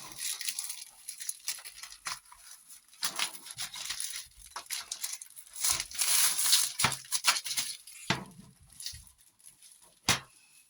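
Packaging being handled and pulled at: irregular crinkling and tearing rustles with small clicks and taps, busiest and loudest a little past the middle, then one sharp click near the end.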